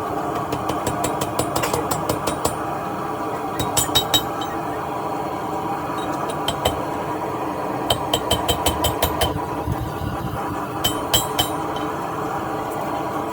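Hammer blows on steel at the anvil, coming in bursts of quick ringing strikes with pauses between, over a steady rushing noise.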